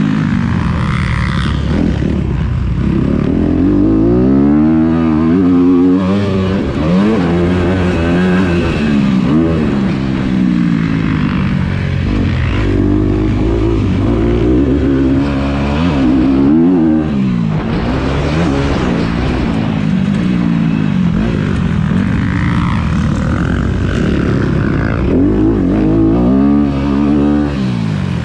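Motocross dirt bike engine heard up close from the bike as it is ridden hard, its pitch sweeping up and dropping back again and again as the rider works the throttle.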